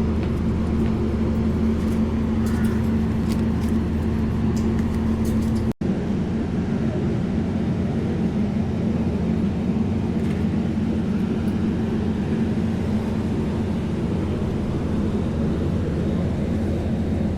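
A motor vehicle's engine running with a steady low drone. It cuts out for an instant about six seconds in.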